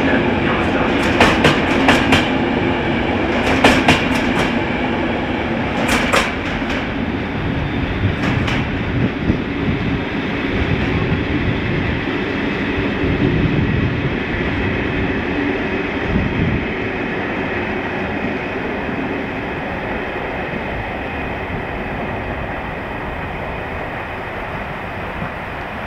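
Departing passenger coaches rolling past at low speed, their wheels clicking in quick groups over the track joints during the first several seconds. The rolling rumble then fades as the train pulls away.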